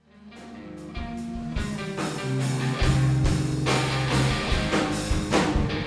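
Rock band playing live, guitar to the fore, fading in over the first few seconds to full level.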